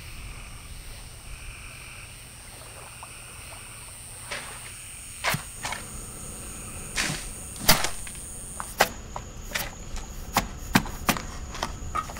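Outdoor evening ambience: insects chirring as a steady high thin tone, with frogs. From about four seconds in, a string of sharp cracks and knocks comes irregularly, closer together toward the end.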